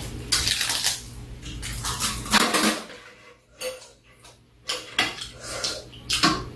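Metal spoon and chopsticks clinking and scraping against bowls and a metal tray while eating, in irregular short clatters with quiet gaps.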